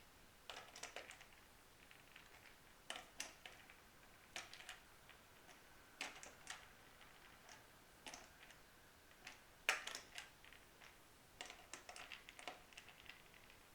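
Faint, scattered clicks and small metallic taps of a screwdriver turning screws and handling the vibrato hardware while fastening a Bigsby vibrato and Vibramate plate to an electric guitar body.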